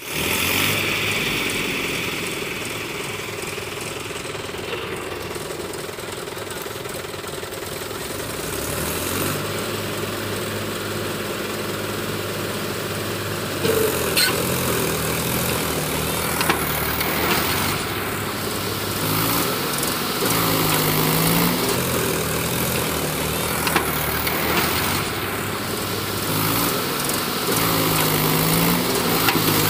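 Mahindra tractor's diesel engine running under the load of a trailer full of soil, steady at first, then louder about halfway through and revving up and down several times as it strains to pull.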